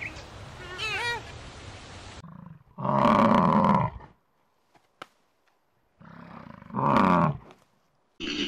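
European bison (wisent) bellowing twice, each a loud, low, rough call about a second long, some four seconds apart. In the first second there are faint, short high squeaky calls.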